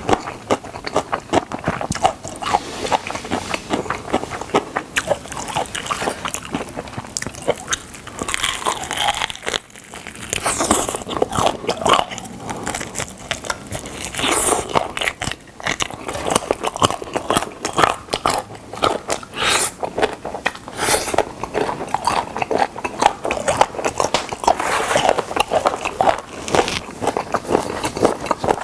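Close-miked biting, crunching and chewing into fried chicken drumsticks: a dense, continuous crackle of crisp skin, with a short lull about ten seconds in.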